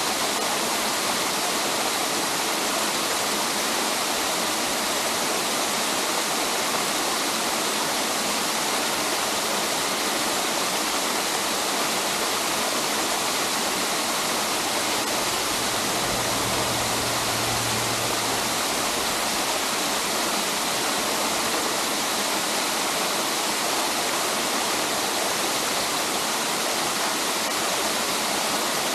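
Waterfall cascading down stepped ledges of layered rock, a steady, unbroken rush of falling water.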